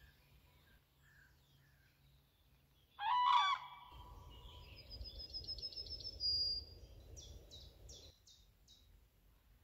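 Outdoor morning bird sounds. About three seconds in there is one loud, short, harsh call from a fowl-like bird. Then come a high songbird trill and a run of five high notes, over a low steady noise that starts about four seconds in and stops about eight seconds in.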